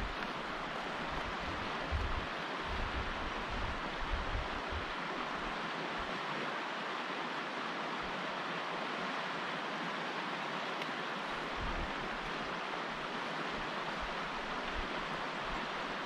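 Wind on an outdoor microphone: a steady rushing hiss, with low rumbling buffets in the first few seconds and again in the last few, and a calm spell in between.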